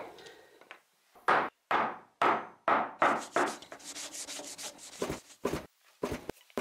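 Cloth rubbing finish onto a wooden tool handle: four separate strokes, then about two seconds of quick back-and-forth rubbing, with a few short sharp knocks near the end.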